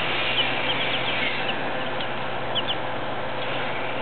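Polish and Silkie chicks peeping: a few short, high peeps scattered through the first part, a pair of them about two and a half seconds in, over a steady background hiss.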